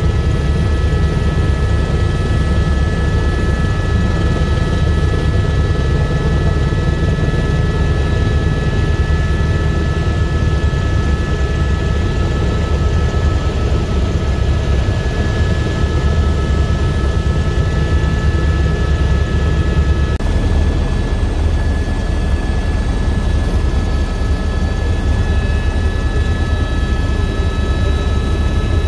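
Cabin noise of an Airbus AS350B3e helicopter in cruise flight: a loud, steady low drone from the main rotor and its Arriel 2D turboshaft engine, with several steady high-pitched whines on top.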